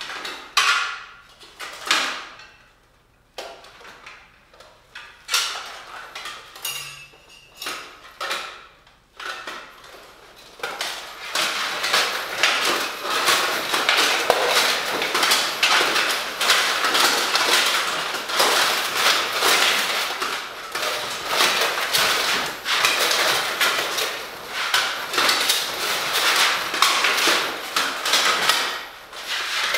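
Stainless steel plate armour and mail clanking and rattling on a moving wearer. There are a few separate clanks at first, then from about ten seconds in a dense, continuous rattle of plates and rings that runs for nearly twenty seconds.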